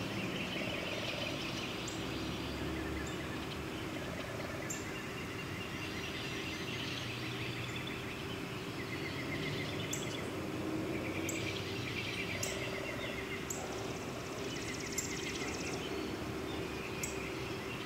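Woodland ambience: small birds chirping and giving short repeated trills over a steady background noise.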